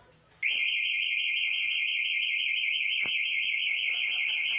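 A loud, steady, high-pitched alarm-like electronic tone with a fast warble, starting abruptly about half a second in and holding without a break. A single click sounds about three seconds in.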